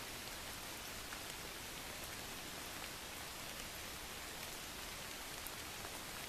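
A steady, even hiss with a few faint scattered ticks.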